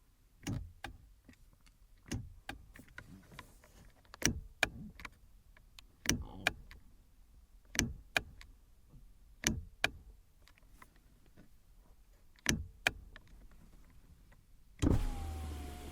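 Sharp clicks, mostly in pairs, every couple of seconds, then about a second before the end a car's electric power window motor starts with a steady whine.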